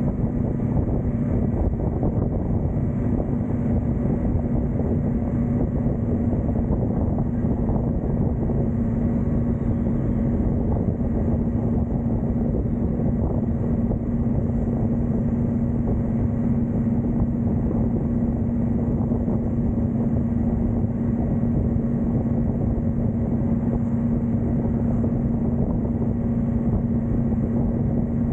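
Motorcycle engine running at a steady cruising speed with one constant drone, under wind rushing over the microphone.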